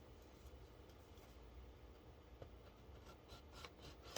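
Near silence: room tone with a low hum, and a few faint ticks in the second half.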